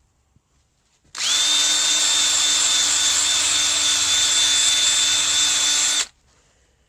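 Power tool with a soft wire brush attachment, used to clean the outer fork tube of a motorcycle front fork. It starts about a second in, comes up to speed quickly, runs at a steady speed for about five seconds, then stops.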